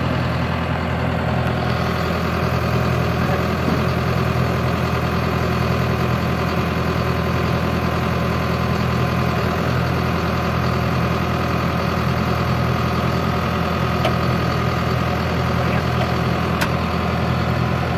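John Deere tractor's diesel engine running steadily, heard from inside the closed cab, with one light click near the end.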